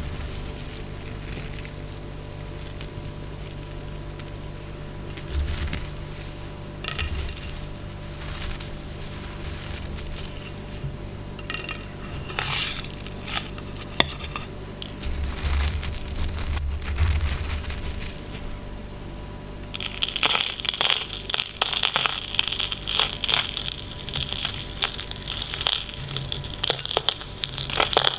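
ASMR tapping and scratching on objects: scattered taps, clicks and short scratches with light clinks, turning about two-thirds of the way through into dense, continuous scratching and crinkling.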